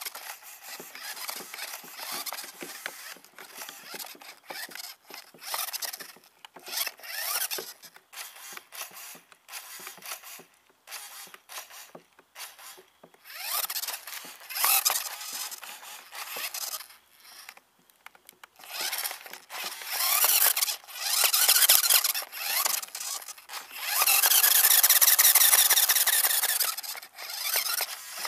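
A homemade duct-taped doll contraption squeaking and squealing in irregular high-pitched bursts as its metal canister is turned by hand, with a long, loud squeal near the end.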